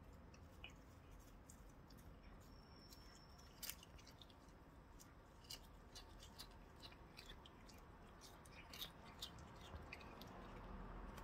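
A cat biting off and chewing blades of cat grass: faint, irregular crisp snips and crunches over quiet room tone.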